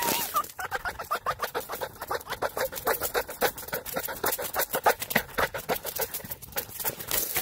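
A fox breathing hard in quick, even huffs, about six a second, right at the microphone of the phone it is carrying in its mouth.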